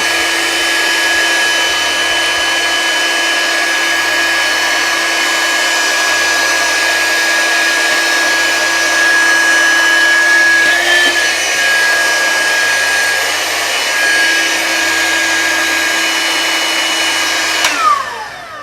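Ryobi ONE+ R18HV-0 18-volt cordless hand vacuum running, a steady high motor whine over a rush of air, with a brief wobble about eleven seconds in. Near the end it is switched off and the whine falls away as the motor spins down.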